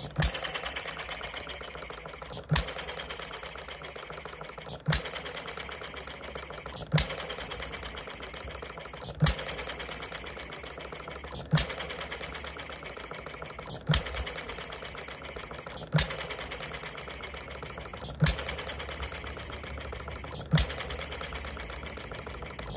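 Model RLE stationary engine running hit-and-miss: one sharp firing stroke about every two and a quarter seconds, with a fast light clatter while it coasts between firings. The ignition points are a bit noisy.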